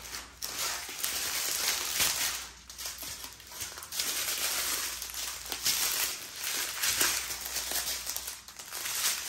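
Strips of small plastic drill bags from a diamond painting kit crinkling as they are handled and unfolded: an irregular plastic rustle with many short crackles.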